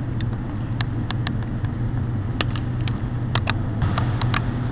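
Basketball play on a hardwood court: a string of sharp, short knocks, thickening in the second half, over a steady low hum in the hall.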